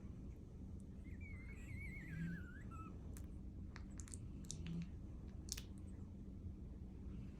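Newborn English Bull Terrier puppy giving a thin, wavering squeak that slides down in pitch over about two seconds, followed by a few faint clicks.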